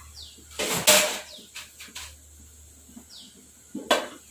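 Kitchen utensil clatter: metal and glass knocks, the last as a glass pan lid is lifted off a kadai. Between them a bird gives short, falling chirps every second or so.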